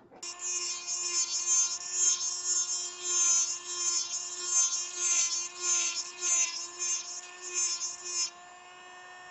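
Small handheld micro-motor with a conical burr switched on and running at a steady whine, grinding acetate in repeated short passes that come and go as the burr bites; the grinding stops about a second before the end while the motor keeps running. The burr is opening up the nose area of an acetate spectacle frame.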